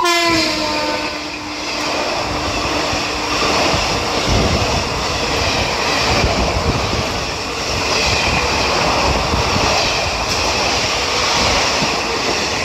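A WAP-7 electric locomotive passes close by on the adjacent track with its horn sounding, the horn's pitch dropping as it goes by and fading within the first few seconds. Then comes a steady loud rush and rattle of its passenger coaches rolling past.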